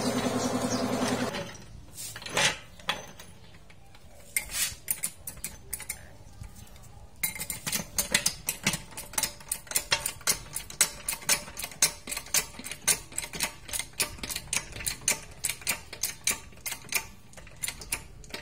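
Metallic clicking from hand tools on the car. A steady hum for about the first second gives way to scattered clicks, and from about seven seconds in to a quick, regular clicking, about three a second.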